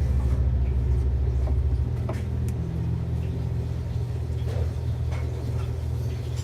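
Background music carried by deep, sustained bass notes that change pitch at the start and again about two and a half seconds in, with a few faint clicks over it.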